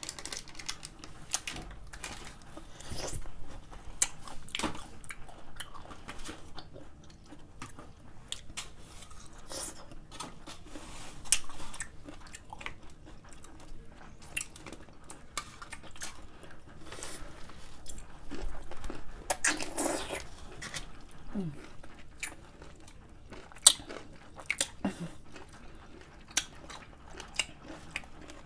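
Pickles being bitten and chewed close to the microphone: irregular wet crunches and clicks of chewing.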